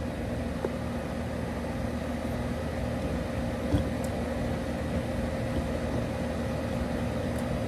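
Air conditioner running with a steady, even hum, with one soft knock a little under four seconds in.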